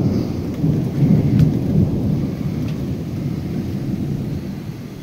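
Thunder rumbling in a thunderstorm, swelling about a second in and dying away toward the end.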